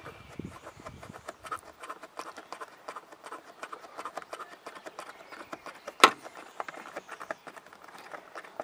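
A T25 Torx screw being turned out of a plastic trim panel with a hand tool: a dense run of small clicks and scratching, with one sharp click about six seconds in.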